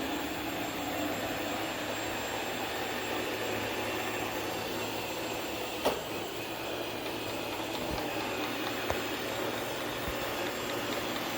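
iRobot Roomba robot vacuum running steadily, a continuous whir of its suction motor and brushes. A couple of brief knocks stand out, the loudest about six seconds in.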